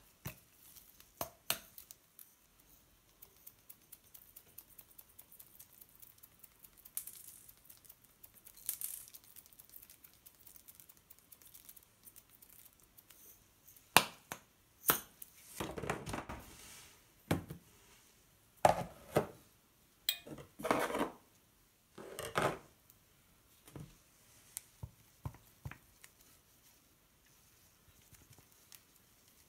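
Gloved hands handling a shaker of chocolate sprinkles and a squeeze sauce bottle: faint rustling and sprinkling at first, then, from about halfway, a run of sharp clicks, knocks and rustles.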